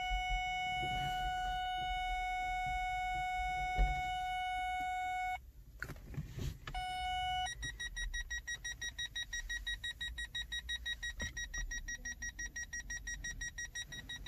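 Opel Astra K parking-sensor warning: a continuous tone, which on such systems means an obstacle very close. It cuts off about five seconds in and sounds again briefly. From about seven and a half seconds a higher-pitched rapid beeping follows, about three to four beeps a second, as the parking-sensor display and reversing camera come up.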